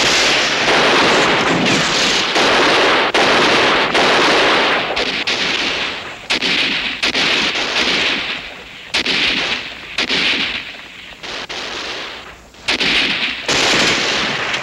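Heavy small-arms fire: rapid gunshots and bursts of automatic fire overlapping almost without a break, easing off for a moment a few times before picking up again.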